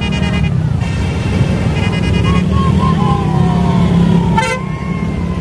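Road traffic in a slow convoy: the engines of vans, pickup trucks and motorcycles running steadily, with a short vehicle horn toot about four and a half seconds in.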